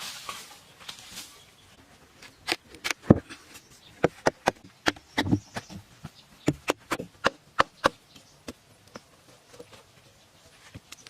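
A run of sharp, irregular knocks from a hand tool striking, about two or three a second, starting about two seconds in and stopping about eight seconds in.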